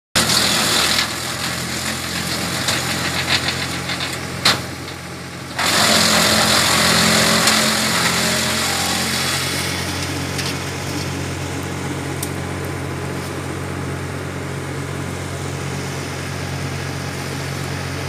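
Tractor-driven Hasatsan DP 700 wood chipper running, with loud rough shredding noise as branches are fed through for the first nine seconds or so, broken by a sharp knock and a short lull about four and a half seconds in. It then settles to a steady engine and chipper drone.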